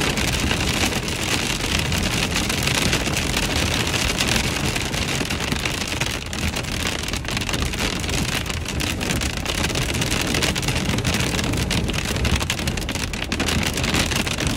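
Hail and rain pelting a minivan's roof and windshield, heard from inside the cabin as a dense, steady patter of small impacts over a low road rumble.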